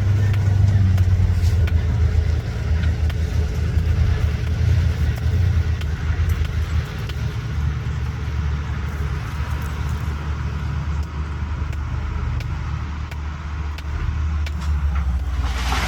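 Caterpillar 320BL excavator's diesel engine running with a steady low drone and light clicks. A loud burst of noise comes near the end.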